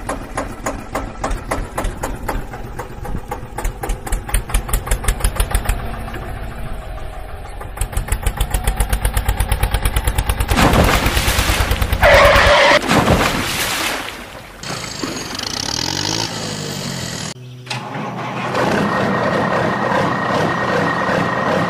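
Engine sound effects laid over the picture: a diesel-like engine chugging with an even, rapid beat for about ten seconds, then a loud burst of other noise around the middle, and a steady truck-engine hum with a thin high whine near the end.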